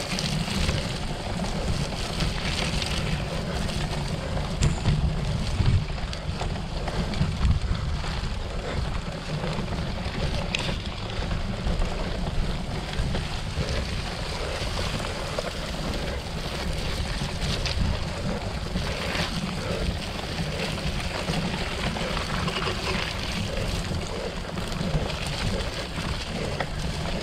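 Wind buffeting the camera's microphone as a cyclocross bike is ridden through mud, over the steady rumble of the tyres and bike on the soft ground, with an occasional knock.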